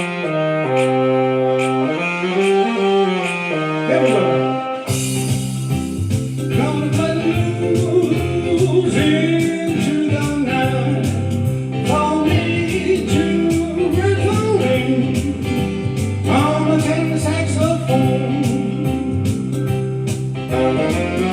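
A blues song with a band. Sustained held notes open it, then about five seconds in the drums and bass come in under a bending lead melody, with regular cymbal ticks.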